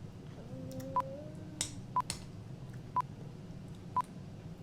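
Short electronic beep at one fixed pitch, repeating exactly once a second, four times, with a couple of faint clicks between the first and second beeps.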